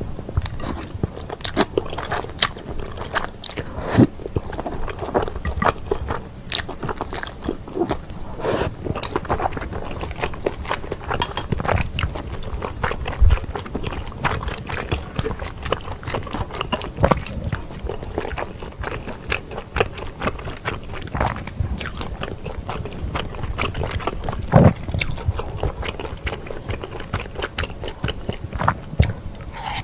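Close-miked eating of chewy wide glass noodles in a spicy kimchi sauce: noodles slurped in, then wet chewing with many irregular sharp mouth clicks throughout.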